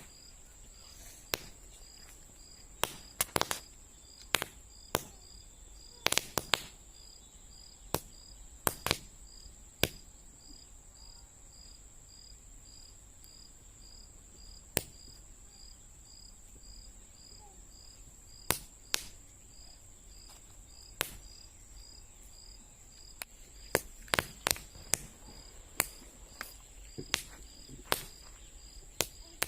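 Paper roll caps (toy cap-gun caps) going off one by one in sharp, short pops at irregular intervals, sometimes several in quick succession, with a lull of a few seconds in the middle. Crickets chirp steadily underneath.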